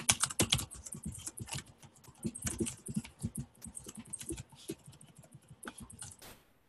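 Typing on a computer keyboard: a quick run of key clicks as a sentence is typed, thinning out near the end.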